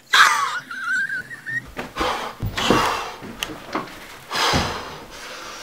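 A person wailing and wheezing: a short high whine about a second in, then several loud breathy wheezes.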